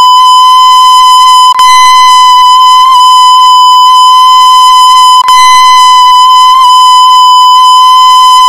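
A single steady electronic beep held without a break, very loud and a little harsh, the kind used as a censor bleep. It clicks and dips briefly about a second and a half in and again a little past five seconds.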